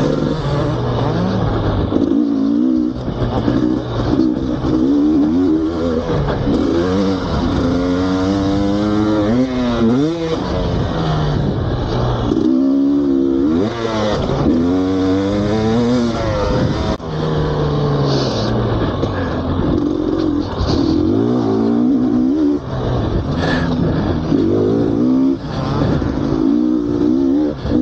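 GasGas two-stroke motocross bike ridden hard, its engine note climbing and dropping again and again as it accelerates and backs off.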